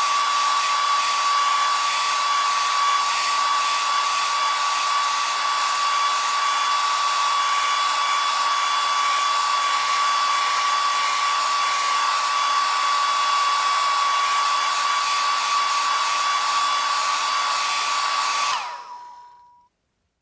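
Electric shaver running with a steady high buzz. It stops near the end, and a single tone lingers for about a second as the motor winds down.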